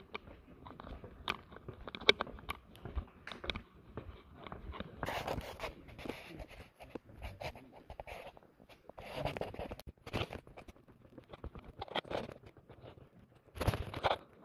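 Footsteps and small scuffs on a paved cave trail with rustling from clothing and the handheld camera, irregular and light, with a few longer, louder rustles.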